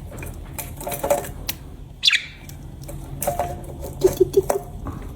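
Pet budgerigars pecking and shuffling, a run of small irregular clicks and taps. A short falling budgie chirp comes about two seconds in, and a few brief low chirps near the end.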